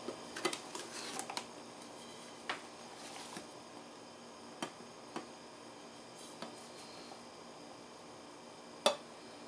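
Light clicks and taps of a plastic gelatin mold against a ceramic plate as the mold and plate are flipped over and handled to turn out the gelatin, with one sharper tap near the end.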